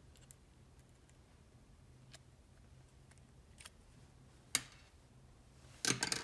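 Faint ticks and small clicks of a stiff wire being bent in the wire bender on the plastic nose of a Hammerhead HCSD040-02 cordless screwdriver, with one sharper click a little past the middle and a short, louder clatter near the end as the tool is handled.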